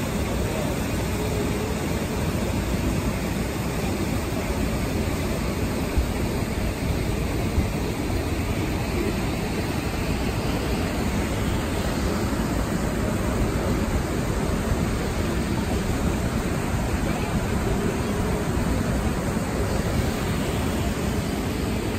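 Steady rushing of river water pouring over a low concrete dam and spillway, an even roar with no let-up, with two faint taps near the middle.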